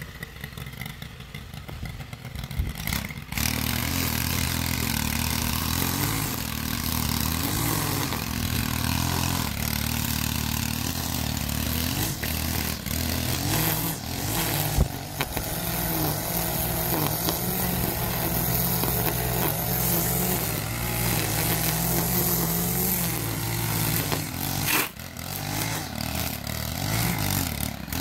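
Gas-powered string trimmer engine revving up to full speed about three seconds in, then running steadily at high speed while its line cuts grass. It dips briefly near the end and revs back up.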